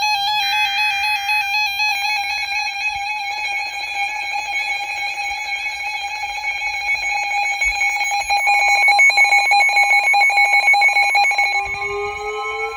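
NOAA Weather Radio sounding an Emergency Alert System alert for a severe thunderstorm warning. It opens with a short burst of the warbling digital header data. A loud electronic alarm tone follows, rich in overtones, and about eight seconds in it changes to a rapid pulsing. Near the end, rising tones join in.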